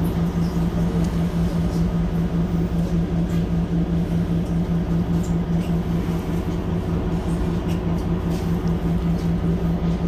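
Mercedes-Benz Citaro C2 Hybrid city bus's diesel engine idling at a standstill: a steady low hum with an even, regular pulse.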